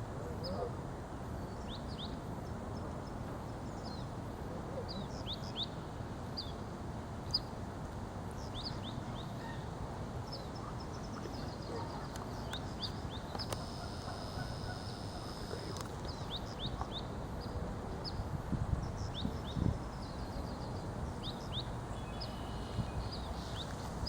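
Small birds chirping: many short, high chirps in scattered runs over a steady low background rumble. A steady high tone sounds for about two seconds roughly two-thirds of the way through.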